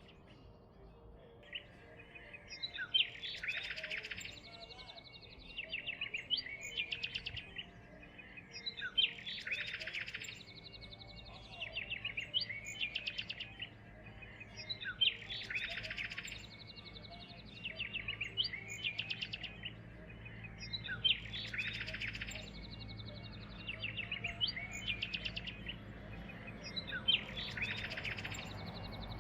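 Songbird song: a phrase of quick chirps building into a rapid trill, repeated in near-identical form about every six seconds, like a looped recording.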